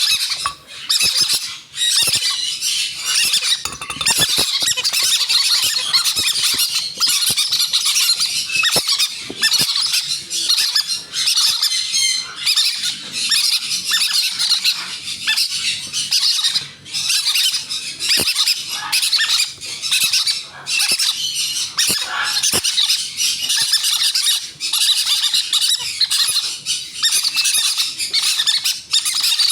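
Green-cheeked conure chicks squeaking rapidly and without pause, the high-pitched begging calls of young parrots being hand-fed.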